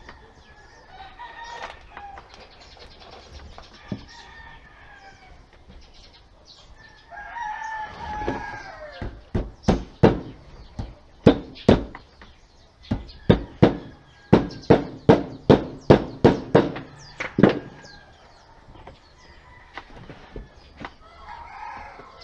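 A hammer drives nails into a wooden drawer in a run of quick, sharp blows, about three a second, through the middle of the stretch. A rooster crows just before the hammering, and chicken calls are heard near the start and the end.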